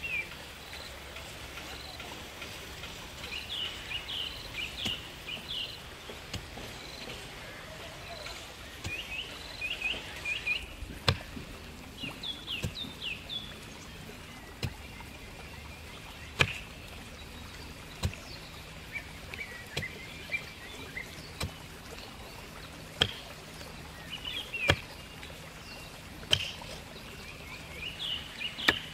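Bamboo pole jabbed down into red clay soil, making dull thuds every second or two, some noticeably louder than others. Small birds chirp in short clusters throughout.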